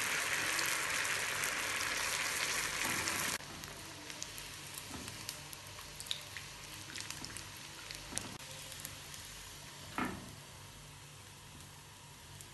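Chicken spring roll deep-frying in hot oil: a steady sizzle that drops abruptly to a quieter sizzle with small crackles about a third of the way in, and a single knock near the end.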